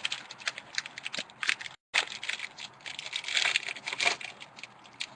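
Crinkling and crackling of trading card box packaging being handled and torn open, a dense run of small irregular clicks and crackles. The sound drops out completely for a moment just under two seconds in.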